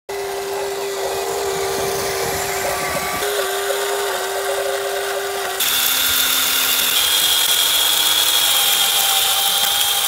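Small electric motors of a Huina remote-control concrete mixer truck whining steadily as the drum turns to pour concrete down the chute. The whine jumps abruptly in pitch about three and five and a half seconds in, higher and shriller after the second jump.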